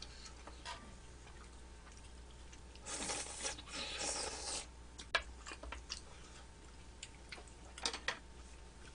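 Close-miked eating sounds: a noisy slurp of food from chopsticks about three seconds in, lasting a second and a half, with soft chewing and a few light clicks of tongs and chopsticks.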